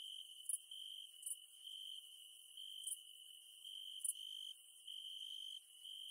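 Insects calling: a steady high-pitched trill that swells and fades irregularly, with a brief, sharp, higher chirp about every second.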